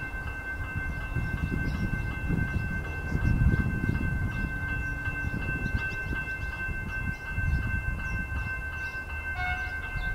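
Level crossing warning bells ringing steadily with a high tone while an approaching suburban electric train rumbles over the track, its rumble growing a little louder a few seconds in.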